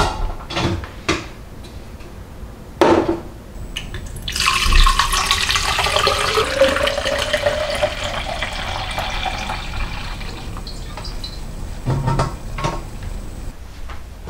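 Water running and splashing into a container for about six seconds as it fills, with a shifting pitch as the vessel fills. Short knocks of kitchenware being handled come before it and near the end.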